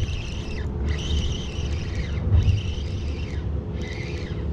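Wind rumbling on an outdoor action-camera microphone, with a higher whirring that starts and stops several times.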